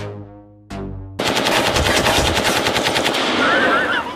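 Two short decaying musical notes, then, about a second in, a long burst of rapid automatic gunfire lasting nearly three seconds.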